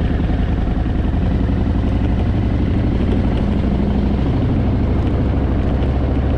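Harley-Davidson Fat Boy's V-twin engine running steadily and loud.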